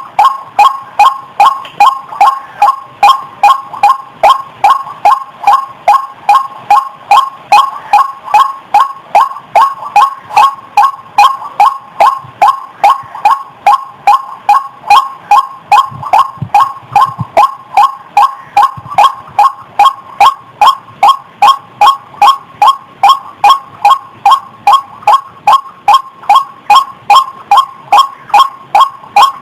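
White-breasted waterhen (ruak-ruak) lure call: loud 'wak' notes repeated in a fast, even rhythm, about two and a half a second.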